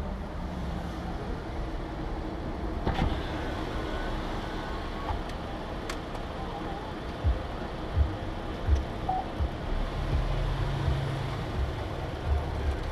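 Steady running noise of a car, with a couple of sharp clicks and, in the second half, several short low thumps.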